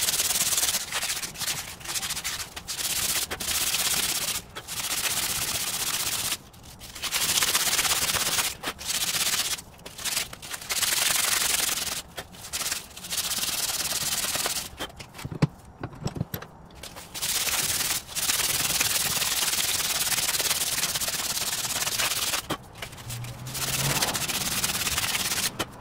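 Fine sandpaper strip pulled back and forth around a rusty Ford Thunderbird front wheel spindle held in a vise, hand-sanding off the surface rust that kept the hub from sliding on. A steady scratchy hiss in runs of a few seconds, broken by short pauses.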